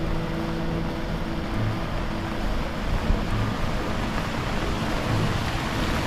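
Steady rushing noise of monsoon wind and rain on the microphone, with no distinct events.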